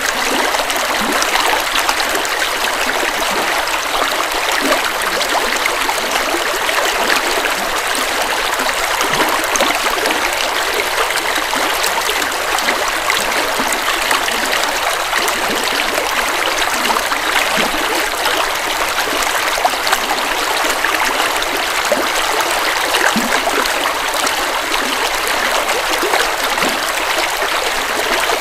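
Forest river flowing steadily over rocks, with continuous rushing water and small gurgles.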